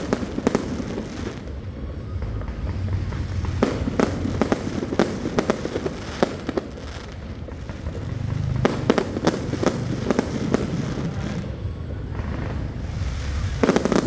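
Aerial fireworks going off in quick succession: many sharp bangs and crackles over a continuous low rumble, in dense clusters near the start, in the middle, and again about two-thirds of the way through.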